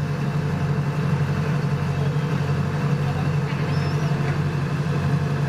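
Combine harvester engine running at a steady speed, a constant low hum.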